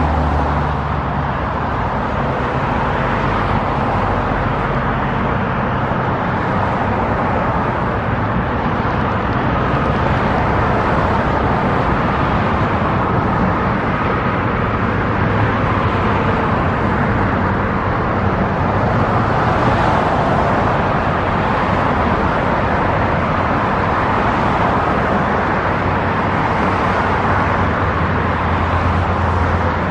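Steady road traffic: cars and engines passing continuously, with a low engine hum underneath.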